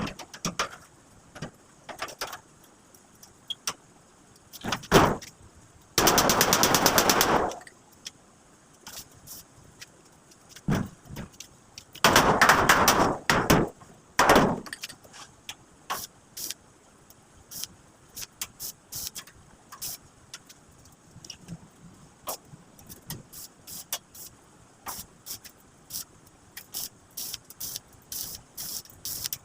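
Two crackling bursts of arc welding on steel, each about a second and a half long, among many sharp irregular clicks and taps of metal being worked.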